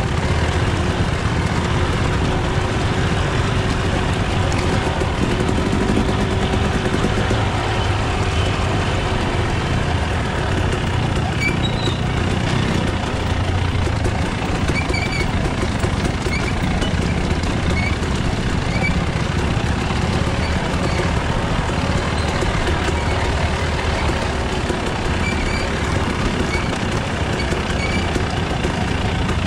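KTM enduro dirt bike's engine running at low, varying revs as it works along a rocky trail, heard from the bike itself.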